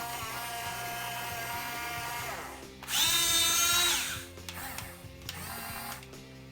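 Electric gear motors of a Huina 1550 RC excavator whining as they drive it. The pitch holds steady, then climbs sharply just before the three-second mark as a motor speeds up, stays louder for about a second, and falls away, leaving a quieter whine.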